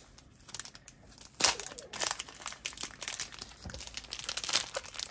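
Clear plastic wrapping crinkling and rustling as it is pulled off a rolled game play mat. The crackling starts about a second and a half in, is loudest at first, and then carries on.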